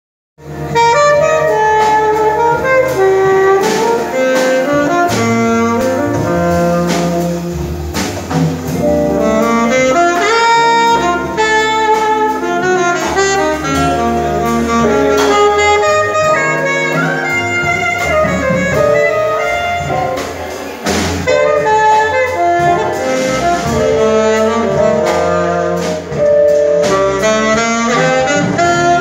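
Small jazz ensemble playing live: saxophones and brass horns playing melody lines over low bass notes, with percussive hits. The music starts about half a second in.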